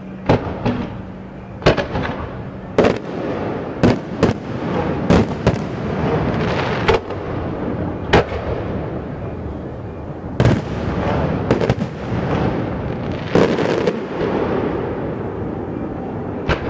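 Fireworks going off: about fifteen sharp bangs at irregular intervals, over a continuous noisy din.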